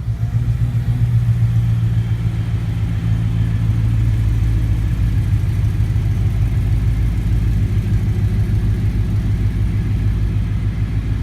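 Triumph C7000 two-post lift's electric hydraulic pump motor running with a steady low hum while the hydraulic lines are purged.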